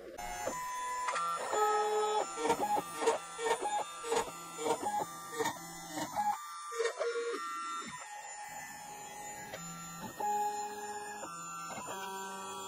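CNC router's stepper motors driving the gantry as a fine tapered bit carves plywood: short whining tones that change pitch with each move, about two a second for a few seconds, then fewer.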